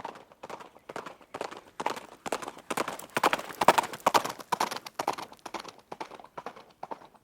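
Hooves of a running horse striking the ground in a steady clip-clop rhythm. The hoofbeats grow louder toward the middle, then fade again, like a horse passing by.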